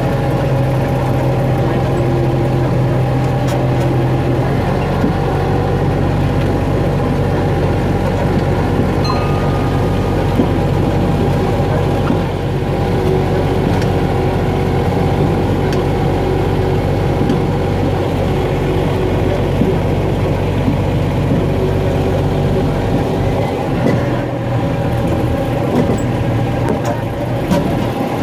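Engine of a small farm-park ride train running steadily as it pulls its cars slowly along a dirt road, heard from a seat in one of the cars.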